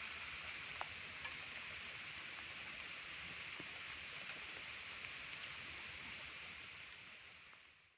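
Steady rain falling, an even hiss with a few faint ticks of drops. It fades out near the end.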